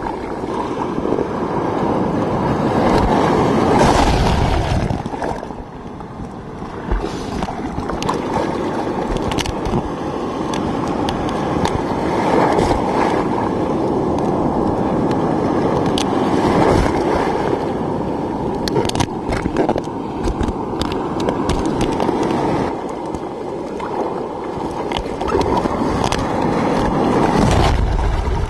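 Rough ocean surf washing over a camera at water level: water sloshing and gurgling against the housing in rising and falling surges, with sharp ticks here and there. The loudest surge comes about four seconds in, and there is a brief lull near six seconds.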